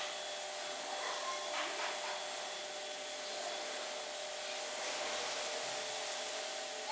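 Steady background hiss with a faint even hum beneath it, and a couple of faint brief sounds about a second and a half in.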